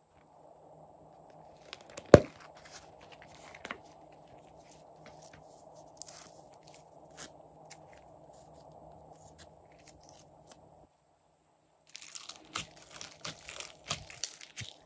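Hands handling and squishing glitter-and-sequin-topped slime, with scattered small clicks and one sharp snap about two seconds in. From about twelve seconds there is a dense run of crackling and popping as the sequins and foam glitter pieces are pressed into the slime.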